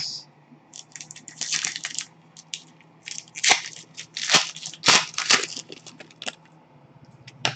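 Foil wrapper of a pack of hockey trading cards crinkling and tearing as it is opened by hand, in a run of irregular bursts that are loudest about three to five seconds in.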